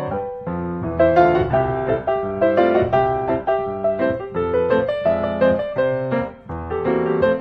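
Background piano music, a steady flow of notes and chords.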